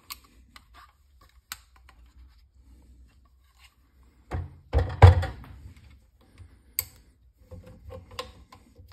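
A Remington Model Four rifle handled on a plastic gun-cleaning cradle. A few light clicks come first. About four to five seconds in there are heavy thunks as the wooden-stocked rifle is set down in the cradle, then a single sharp click, and smaller clicks of handling near the end.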